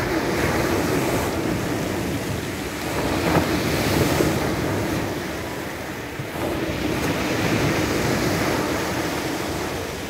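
Sea surf breaking and washing up a pebble beach. The rush of water swells and fades with each wave, about three surges in all.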